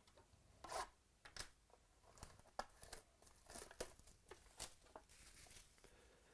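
Faint tearing and crinkling of trading-card packaging being opened by hand, a string of short rustles and a few sharp clicks.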